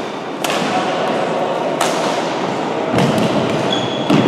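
Badminton rackets striking a shuttlecock during a doubles rally, four sharp hits about every second and a quarter, echoing in a large sports hall.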